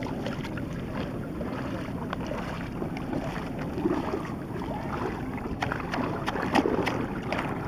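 Wind buffeting the microphone over shallow pool water, with small splashes and sloshing as a toddler dips her hands and a toy into a plastic bucket in the water. The splashes come as a few quick strokes, most of them in the second half.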